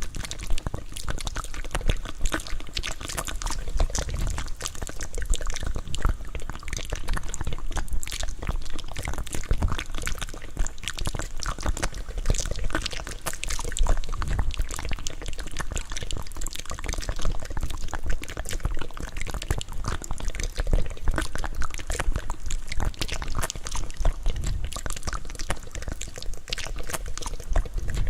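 Close-miked wet mouth sounds for ASMR: licking, a dense, unbroken run of small wet clicks and smacks.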